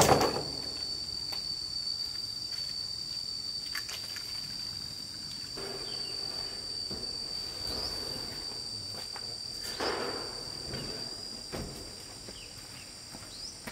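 Insects keeping up a steady, shrill, high-pitched drone. At the very start a sharp metallic clatter comes from steel pipes being dropped, and a few fainter knocks and scrapes follow as a stainless steel water tank is slid off a pickup's bed.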